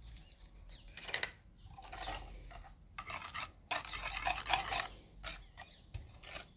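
Wire whisk beating a runny egg, sugar and oil batter in a glazed ceramic bowl, the metal wires scraping and clinking against the bowl in several spells of quick strokes.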